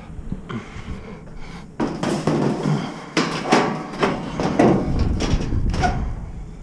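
Scrap sheet metal being shoved and dropped onto a pickup bed full of metal scrap: a run of clanks, knocks and metal-on-metal scraping, starting about two seconds in.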